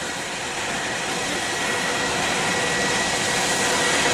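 Jet airliner's engines passing low overhead: a steady roar with a thin high whine, growing louder as the plane approaches.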